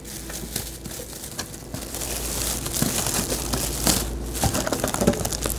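Clear plastic wrapping crinkling and rustling as hands pull it off a pellet smoker's hopper box. It gets louder from about two seconds in.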